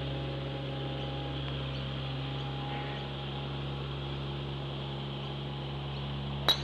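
Steady drone of a mower engine, then near the end a single sharp crack of a golf driver striking a ball off the tee.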